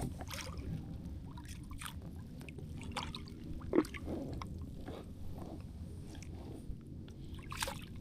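Water sloshing and dripping around a kayak, with scattered small clicks and knocks; the loudest knock comes a little before four seconds in.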